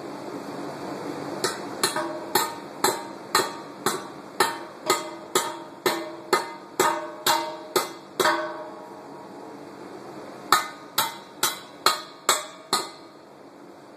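Hammer driving steel anchor bolts into a concrete pad: a run of about fifteen strikes at roughly two a second, each with a short metallic ring, then a pause and six more quick strikes.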